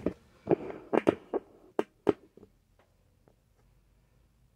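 A quick run of light knocks and taps in a small, enclosed space, about ten in the first two seconds and a half, then quiet: handling noise from work going on close to the phone.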